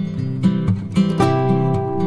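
Background music: acoustic guitar playing plucked notes over a repeating bass line.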